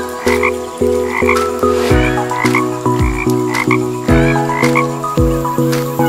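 Music with a steady beat: repeating pitched notes over a low kick about once a second, with short croak-like calls about twice a second.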